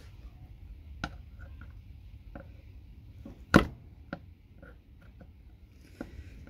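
Scattered sharp clicks and knocks of plastic connector casings being pulled apart and handled, with one loud knock about three and a half seconds in.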